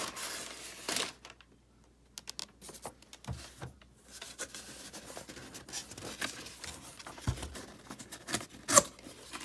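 Packaging being handled and unwrapped from a boxed Funko Pop figure: rustling, tearing and scraping with scattered small clicks. A sharp click near the end is the loudest sound.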